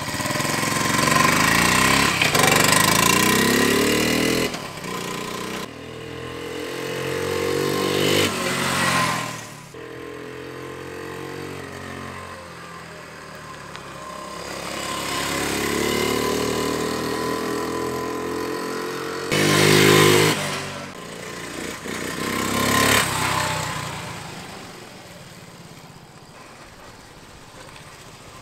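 1978 Honda Z50 Mini Trail's small four-stroke single-cylinder engine riding away and back: its pitch climbs through the gears, dropping at each shift. It fades into the distance about ten seconds in, grows louder as the bike returns, is loudest briefly around twenty seconds in, and fades again near the end.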